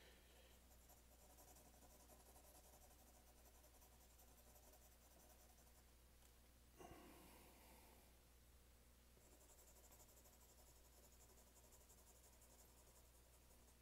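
Faint scratching of a 4B graphite pencil shading on 50 lb drawing paper. A brief soft sound comes about seven seconds in.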